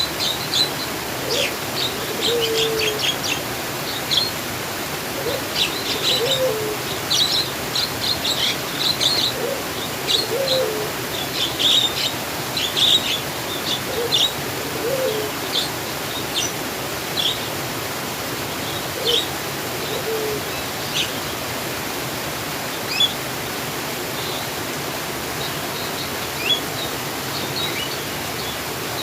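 Songbirds chirping over a steady rush of flowing water. The chirps come thick in the first half and thin out to scattered single calls later, with a lower, short rising call repeated under them in the first half.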